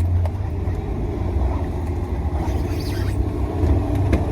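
Car engine idling: a steady low rumble heard from inside the cabin.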